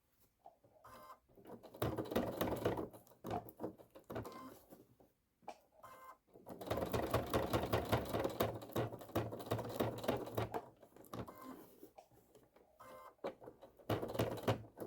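Domestic sewing machine stitching hook-and-loop (Velcro) tape onto canvas, a fast even chatter of needle strokes. It runs in several stop-start bursts, with the longest run in the middle lasting about four seconds.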